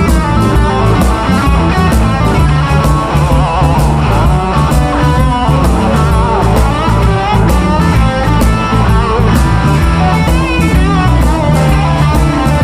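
Blues band playing an instrumental passage, electric guitar leading with bent notes over bass and a steady drum beat.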